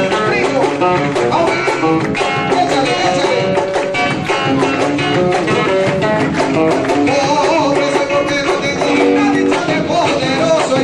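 Live marinera limeña music: acoustic guitar strumming and plucking over a cajón beat, with a voice singing.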